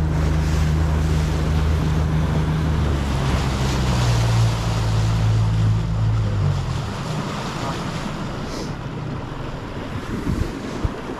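Boat engine running under way, with water rushing along the hull and wind on the microphone. The engine note steps up in pitch about three seconds in and drops away about six and a half seconds in, leaving water splashing and wind.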